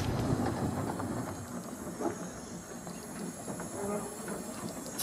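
Carriage of the 15-inch gauge Ravenglass and Eskdale steam railway running along the track, its wheels rumbling and clicking irregularly over the rails, with a soft hiss of steam.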